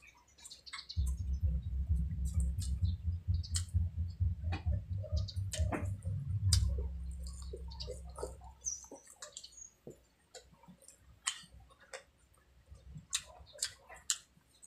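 Close-up eating sounds: wet mouth clicks and smacks as barbecued pork ribs are bitten and chewed off the bone. A low rumble starts about a second in and fades out around the middle.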